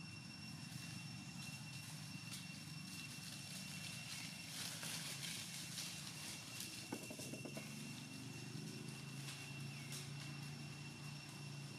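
Outdoor background noise: a steady low hum under two steady high-pitched tones, with a brief rustling burst about five seconds in and a single sharp click about seven seconds in.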